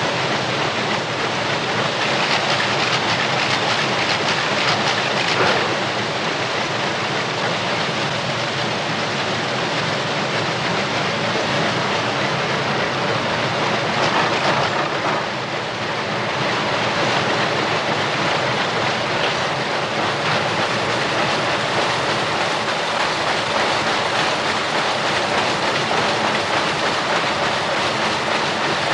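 Textile mill weaving-room machinery, most likely looms, running together in a dense, steady, loud mechanical clatter with a faint steady hum underneath.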